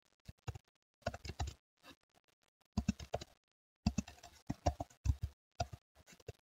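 Typing on a computer keyboard: quick runs of keystrokes in several bursts with short pauses between them.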